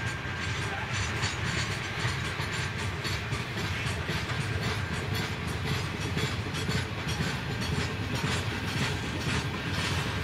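Loaded grain train of VHAF hopper wagons rolling past, the wheels clicking steadily over the rail joints.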